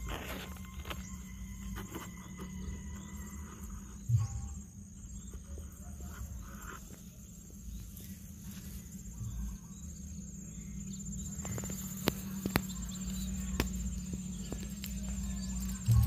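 Steady high-pitched insect buzzing over a low steady hum, with a few short sharp knocks now and then.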